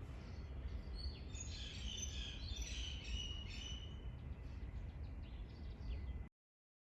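Outdoor background with a low steady rumble, and small birds chirping in a quick cluster from about one to four seconds in. The sound cuts off abruptly just before the end.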